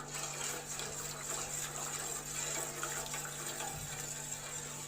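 Liquid poured in a steady stream into a pan of warm coconut water.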